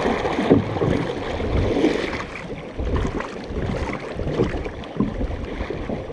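Canoe paddles dipping and pulling through lake water, with repeated splashing strokes and water rushing past the hull. Wind rumbles on the microphone underneath.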